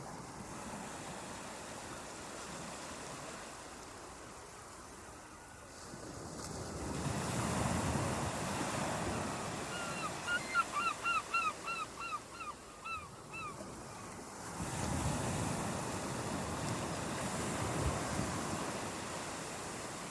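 Ocean surf: two waves break and wash up the shore, about seven and fifteen seconds in. Between them a bird calls in a quick run of about ten short falling notes.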